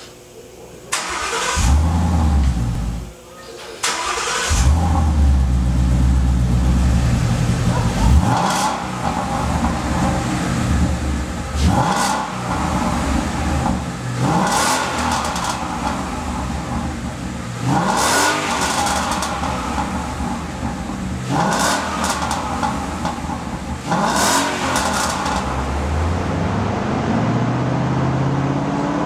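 Ford Mustang's engine and exhaust start up and idle, then are revved in about six quick blips, each rising and falling in pitch. Near the end the car pulls in gear on the chassis dyno, the pitch climbing steadily as the rear wheels spin the rollers.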